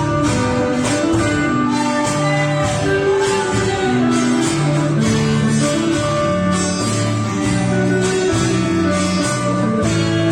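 Music: a gospel hymn accompanied by strummed guitar.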